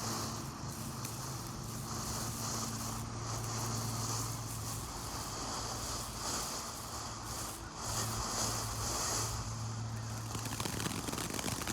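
Ground fountain firework spraying with a steady hiss that swells and fades, over a steady low hum. Both stop together about ten and a half seconds in. No bangs.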